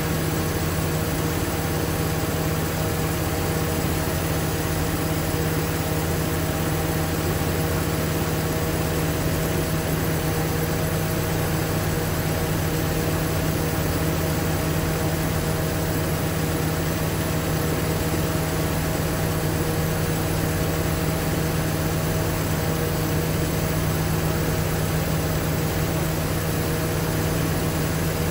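The MGB's 1.8-litre B-series four-cylinder engine idling steadily on its twin SU carburettors while the mixture is being set.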